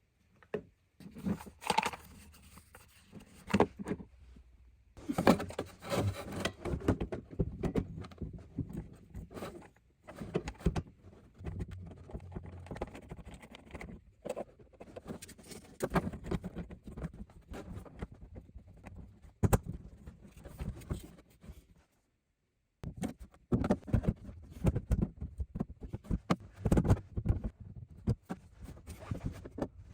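Hand work on RV drain plumbing: irregular scraping, clicking and knocking as fittings are handled, broken by short pauses. The sound drops out for about a second a little past two-thirds of the way through.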